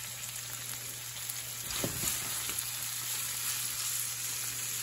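Raw jumbo shrimp sizzling steadily in hot olive oil and chopped garlic in a frying pan.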